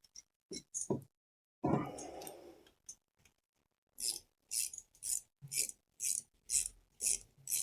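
Ratchet wrench being worked back and forth to run in a crankcase bolt: after a few handling clicks and a scrape, short rasping ratchet strokes start about four seconds in and repeat about twice a second.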